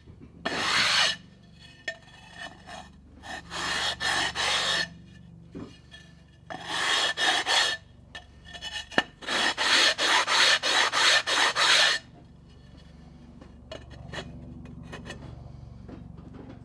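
Repeated rasping strokes of a file or abrasive being rubbed back and forth over a hard surface, in several bursts with pauses between, the last run about three strokes a second. About twelve seconds in the rubbing stops and only a low steady hum remains.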